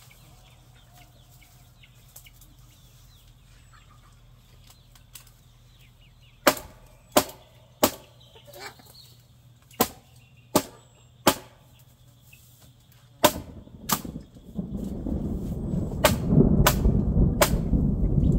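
Sharp hammer blows, about a dozen, mostly in runs of three less than a second apart, each ringing briefly. In the last few seconds a loud rumbling noise builds up under the last blows.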